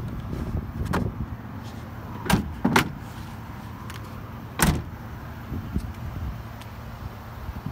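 Four sharp knocks over a steady low rumble: one about a second in, two close together a little past two seconds, and one near five seconds.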